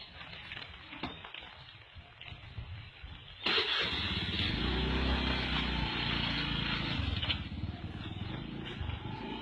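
Small motor scooter engine starting about three and a half seconds in and running as the scooter pulls away, under a loud steady hiss.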